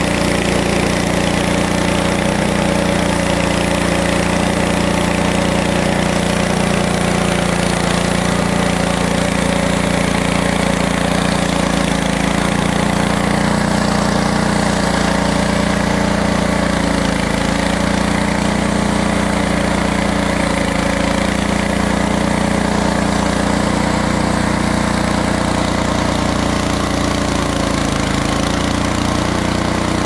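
Frontier OS23 portable band sawmill running steadily, its small gasoline engine driving the band blade through a log.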